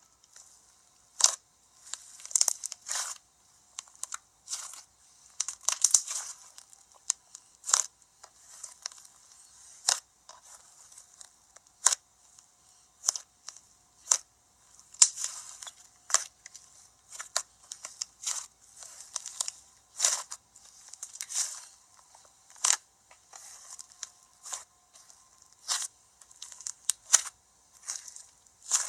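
Slime being squeezed and poked by hand, giving irregular sticky pops, clicks and crackles.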